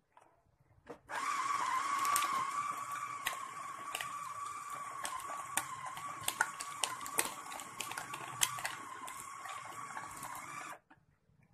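Oxone electric food chopper running on a chicken meatball mix, its motor whining at a steady pitch, with sharp clacks throughout as ice cubes in the mix knock against the blades and bowl. It starts about a second in and cuts off suddenly near the end.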